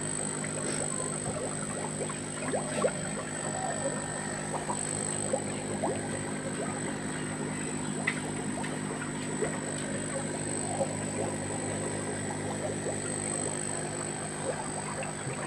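Water churning and bubbling into a fish tank, with many small pops and splashes over a steady hum.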